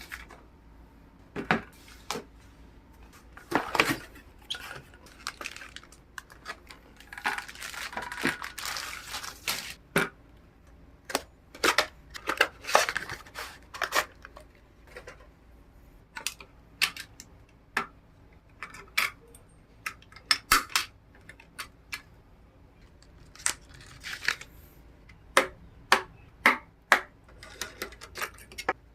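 PC parts and their packaging being handled during a build: scattered sharp clicks and knocks of hard plastic and metal pieces, with a stretch of rustling about seven to ten seconds in.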